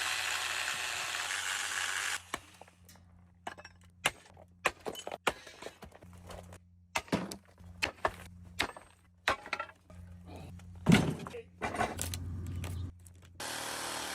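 A series of irregular sharp knocks and cracks, a dozen or so over about eleven seconds, as metal motor parts are broken apart for scrap, over a low steady hum. A steady hiss runs at the start and comes back near the end.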